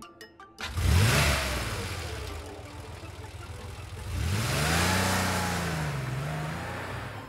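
Car engine sound effect revving up twice over a rushing hiss. The first short rev comes about a second in, and a longer rev rises, falls and rises again from about four seconds in.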